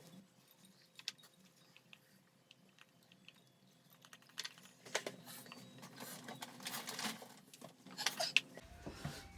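Someone crunching and chewing ice in the mouth. Scattered small clicks come first, then louder crunching through the second half.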